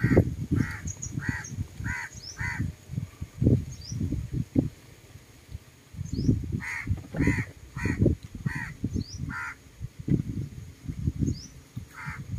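A crow cawing in runs of about five caws, each run roughly half a second between caws: one run near the start, another in the second half. Faint short high bird chirps come in between, over irregular low buffeting of wind on the microphone.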